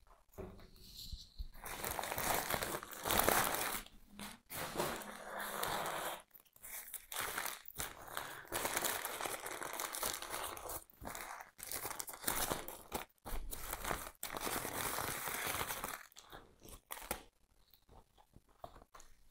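Packaging crinkling and rustling in irregular stretches as potted plants are unwrapped and lifted out of a shipping box; it dies away near the end.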